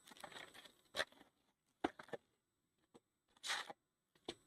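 Faint handling of a cardboard hobby box and its trading-card packs: a few sharp taps and clicks and one brief rustling scrape as the packs are taken out of the box.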